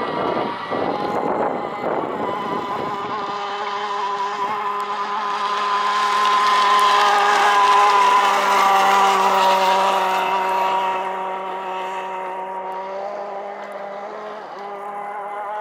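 Petrol two-stroke engine of a model shovel-nose hydroplane running at high, steady revs as the boat speeds past. It is loudest about halfway through, then fades as the boat moves away.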